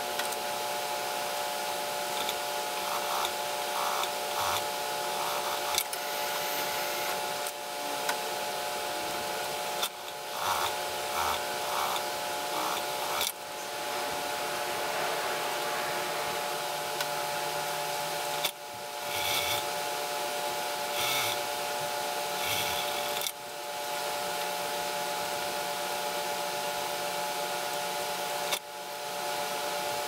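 Suit fabric and lining rustling and rubbing as they are handled at the sewing machine, over a steady hum.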